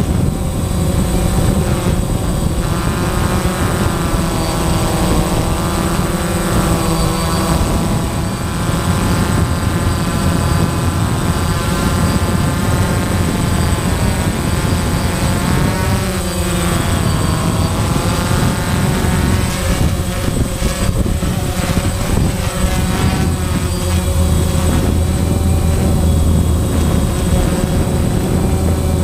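DJI Phantom quadcopter's electric motors and propellers whining close up, heard from the camera on board, the pitch shifting up and down with throttle and dipping briefly about halfway through.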